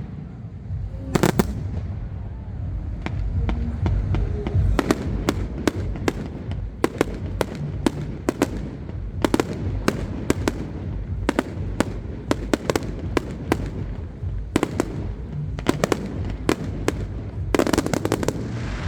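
Fireworks display: a steady run of sharp bangs and cracks over a continuous low rumble, with a dense burst of crackling near the end.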